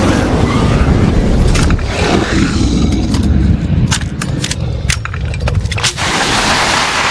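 Animated film sound effects: a steady deep rumble with a run of sharp clicks and cracks about halfway through.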